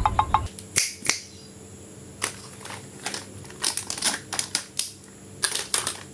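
Plastic toy packaging being handled and opened: scattered sharp clicks and crinkles at irregular intervals, in small groups. In the first half second, a rapid run of short pitched ticks ends.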